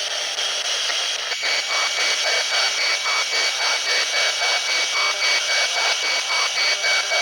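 Spirit box, a radio scanner sweeping through stations, giving out a steady hiss of static chopped into short bursts about three times a second. A thin steady tone joins about a second in.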